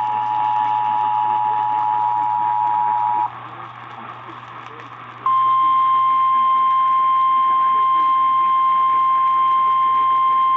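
Emergency Alert System two-tone attention signal, two steady tones sounding together, which cuts off about three seconds in. About two seconds of radio hiss follow, then the single steady 1050 Hz NOAA Weather Radio warning alarm tone, which signals that a warning message follows. A steady low hum from the radio reception lies underneath.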